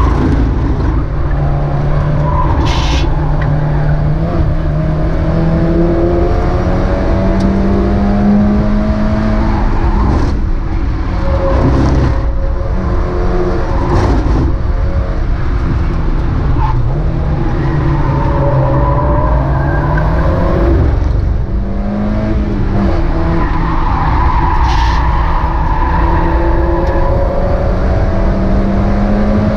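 Mazda MX-5 race car's four-cylinder engine at racing speed, its pitch climbing and then dropping several times with gear shifts and lifts, over steady road and wind noise.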